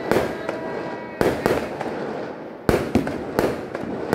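Aerial fireworks bursting: about half a dozen sharp bangs, spaced irregularly, with crackling between them.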